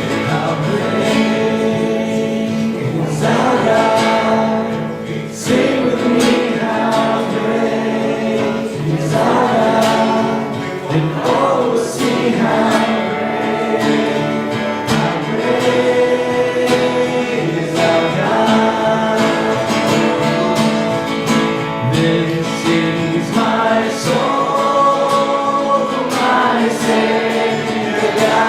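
Congregational worship song: voices singing together over strummed acoustic guitar.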